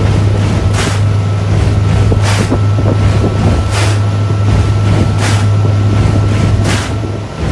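Motorboat engine running steadily at towing speed with a low drone, wind on the microphone, and a short splashy hiss about every second and a half.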